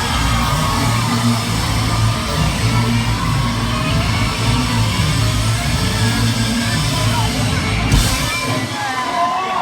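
Live rock band playing loud, with heavy drums, bass and guitar and voices yelling along. About eight seconds in there is a sharp hit, after which the heavy low end drops out and mostly voices are left.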